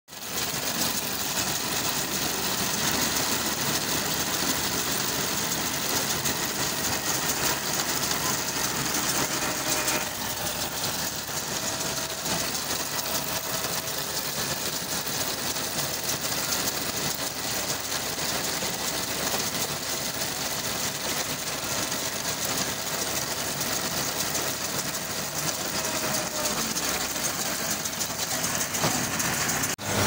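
Bharat round baler running off a tractor's PTO shaft, its roller chains and sprockets clattering over the tractor's engine in a steady mechanical din. The noise drops slightly about ten seconds in.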